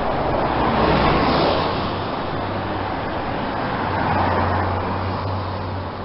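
Road traffic: vehicles passing in a steady stream over a low engine hum. One swells and fades about a second in, and another passes around four seconds in.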